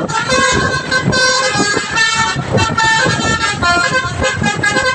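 Telolet basuri multi-tone bus horn playing a quick melody, its notes changing several times a second.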